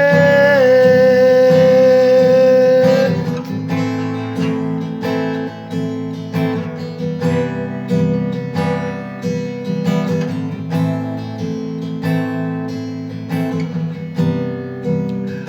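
Worship song: the last sung note of the refrain is held for about three seconds, then an instrumental interlude with acoustic guitar strumming follows.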